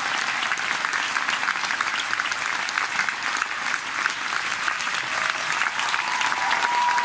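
A large audience clapping steadily, many hands at once. A single steady high tone, like a held whistle, sounds near the end.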